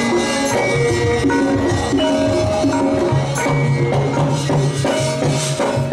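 Javanese gamelan playing: held, ringing metallophone notes over a running pattern of hand-drum strokes.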